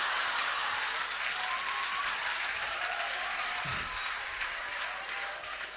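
Live comedy-club audience applauding after a punchline, the clapping gradually dying down toward the end.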